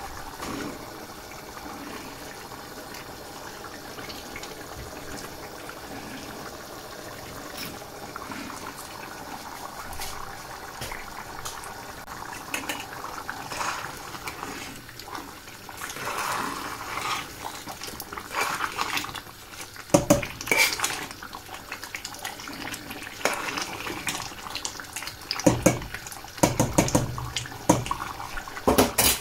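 Chicken keema curry simmering and bubbling in a stainless steel pan, then a metal spoon stirring through it, clinking and knocking against the pan. The knocks are loudest about twenty seconds in and again in the last few seconds.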